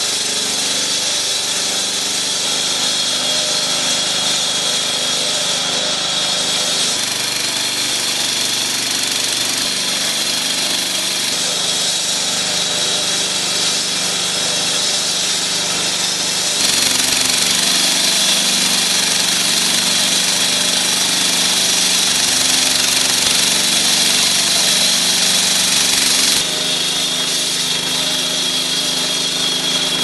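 Walk-behind floor saw cutting wet concrete: the blade grinding steadily in the cut over the steady running of the saw's single-cylinder engine. The sound changes abruptly three times, loudest in the stretch from about 17 to 26 seconds in.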